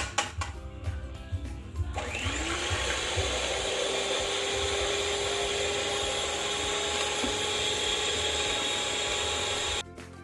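Electric mixer beating egg whites: it spins up about two seconds in, rising briefly in pitch, runs at a steady whirr, then cuts off suddenly near the end. Background music with a beat plays before it starts.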